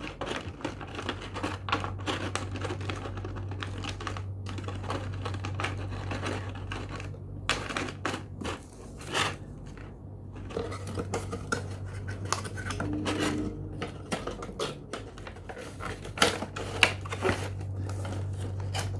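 Hands handling packaging: irregular rustling, crinkling and small clicks, over a low steady hum.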